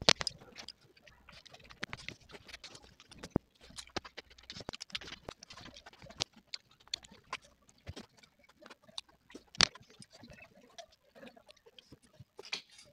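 Close-up eating sounds of soft, watery rice being chewed: an irregular run of wet clicks and mouth smacks, a few sharper than the rest.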